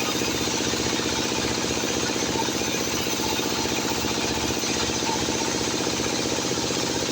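Sawmill machinery running steadily, with an even engine-like hum.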